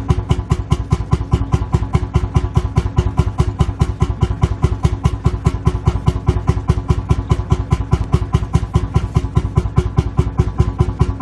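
Lanz Bulldog tractor's single-cylinder two-stroke hot-bulb engine idling, firing in an even, rapid beat several times a second.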